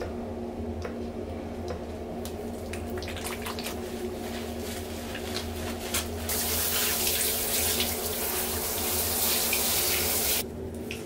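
Handheld shower head spraying water over a small dog, starting about six seconds in and cutting off suddenly near the end. Before it come scattered small clicks and squishes as shampoo is pumped and worked into the fur, over a steady low hum.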